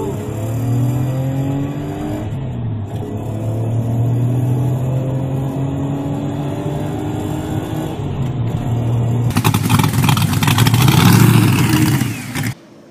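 Toyota V12 engine in a Porsche 928, heard from inside the cabin, running under way with its pitch rising and dipping as it pulls. About nine seconds in it changes to a louder, rougher 427 V8 in a Porsche, revving with a rapid crackle, which cuts off near the end.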